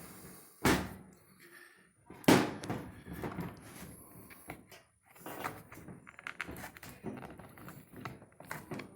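Hands working on a partly disassembled electric dryer's wiring, unplugging plastic harness connectors. Two sharp knocks come about a second and two seconds in, then a run of small clicks and rattles.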